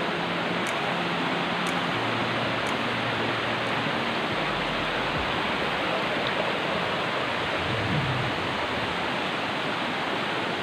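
Rushing water of a rocky mountain stream, its rapids and waterfall making a steady, even rush.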